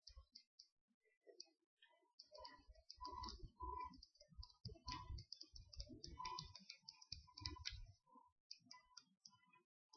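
Pages of a sticky-note flipbook riffling past a thumb: a faint run of rapid paper clicks. They are sparse at first, come thick and fast through the middle, and thin out near the end.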